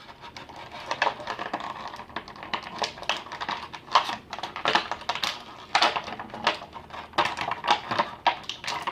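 Irregular sharp clicks and crackles of an action figure's plastic packaging being handled as the figure is worked out of its tray.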